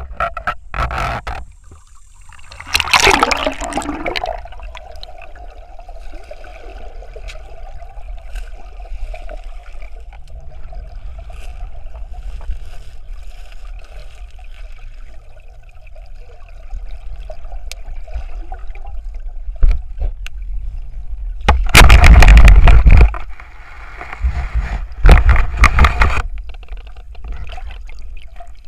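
Underwater sound from a submerged camera: bubbling, gurgling water, with loud rushes of bubbles and splashing about three seconds in and twice more past the middle, the first of those over a second long. A faint steady hum runs through the quieter stretch between them.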